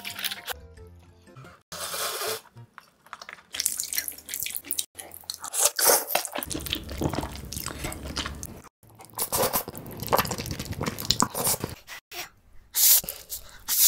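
Close-miked noodle eating: loud slurps and wet chewing in a string of short irregular bursts, broken by a few abrupt gaps, over faint background music.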